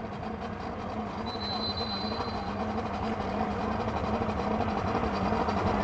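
Outboard motor running at low speed, a steady hum that grows slowly louder.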